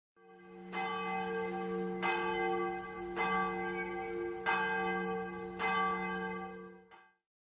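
A large bell tolling: about five strokes a little over a second apart, each renewing a long, rich ring. The ring dies away shortly before the end.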